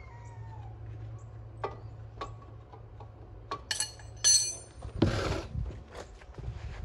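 Metal tools and brake parts being handled and set down: scattered light clicks, then a few ringing metal clinks about three and a half to four and a half seconds in, followed by a short scrape about five seconds in.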